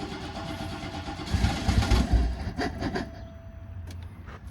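Car engine being cranked by its starter motor on a dose of starting fluid, with a steady whine throughout; the engine fires and sputters for about a second near the middle, then does not keep running and the cranking stops near the end. It is a no-start that the owner suspects is a fuel supply problem.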